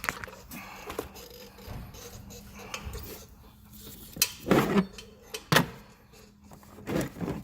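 Tools and items being handled and moved around in a metal tool box drawer: scattered clinks and knocks, with a busier burst of rattling about four and a half seconds in and sharp knocks near the end.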